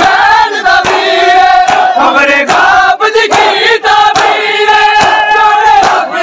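A large crowd of men chanting a noha (Urdu mourning lament) together, with rhythmic chest-beating (matam) hand slaps at about two to three a second.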